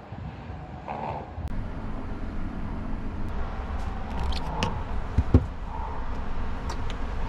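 Steady low rumble, with a few light clicks and one sharp knock about five seconds in, from a phone and a lace curtain being handled in the back of a small car.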